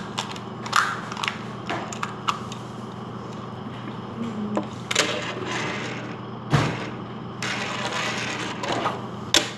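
Plastic clicks and rustling as a surprise-toy capsule is worked open and the small plastic toy inside is handled. A louder thump comes about two-thirds of the way through. A steady low hum runs underneath.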